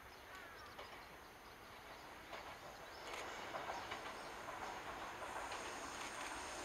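Shinano Railway 115 series electric train approaching, its running noise growing louder, with faint clicks of wheels over rail joints. A few bird chirps at the start.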